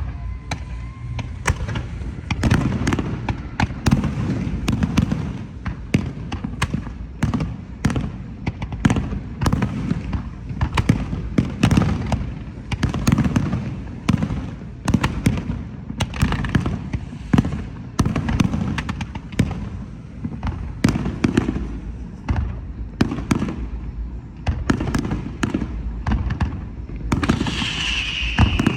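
Aerial fireworks display: shells bursting in quick succession, many sharp bangs over a continuous low rumble and crackle, with a high hiss near the end.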